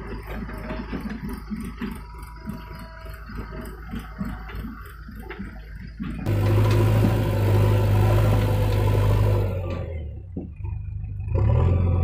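Diesel engine of a backhoe loader running loud and steady, cutting in abruptly about halfway through, dipping briefly near the end and then coming back. Before it, a quieter rhythmic sound.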